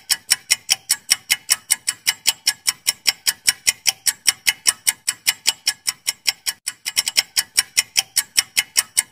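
Quiz countdown-timer sound effect: clock-like ticking, about four ticks a second.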